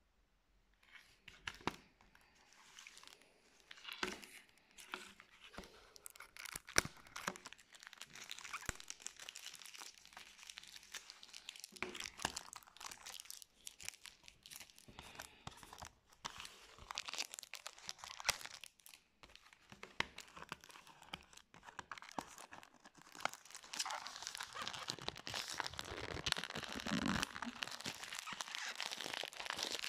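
Plastic shrink-wrap being torn and peeled off a CD jewel case: irregular crinkling and crackling with scattered clicks, starting about a second in and growing denser and steadier near the end.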